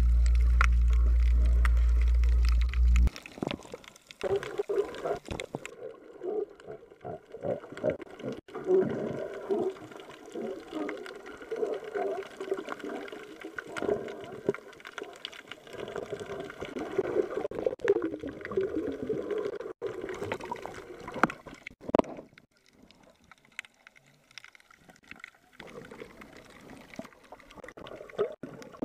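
Sound picked up by a camera under water: a loud, steady low hum that cuts off suddenly about three seconds in, then irregular gurgling and crackling of water and bubbles with many small clicks, fainter after about 22 seconds.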